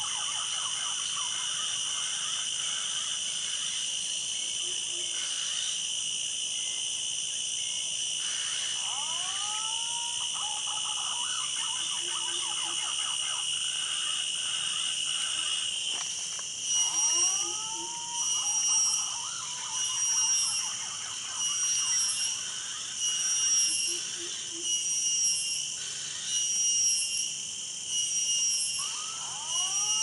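A chorus of insects in the forest rings steadily and high. About halfway through it begins to swell and fade about every second and a half. A few short arched whistled bird calls sound over it.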